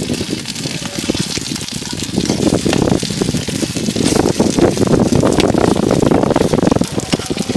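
Chive-filled rice cakes frying in oil on a wide flat pan, sizzling and crackling while a metal spatula turns them. The sizzle grows louder about two seconds in.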